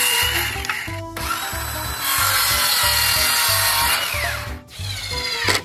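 Circular saw cutting through wooden strips, with a brief break about a second in; near the end the blade winds down with a falling whine.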